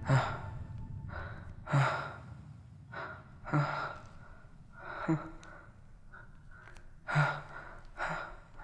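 A man breathing heavily in short, uneven gasps, about nine breaths with a longer pause past the middle, some starting with a slight catch of voice: frightened, panicky breathing.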